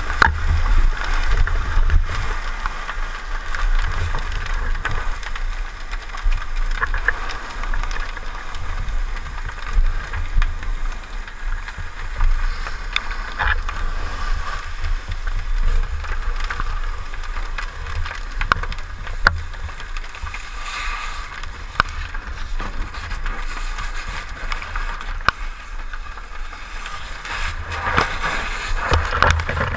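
Fire hose nozzle spraying a steady water jet into a burning building, a continuous hiss over a low rumble, with a few sharp cracks along the way.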